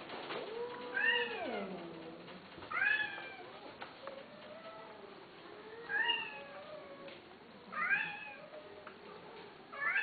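Persian-type kitten mewing repeatedly, short high-pitched mews about every two seconds, with a lower, falling meow about a second in.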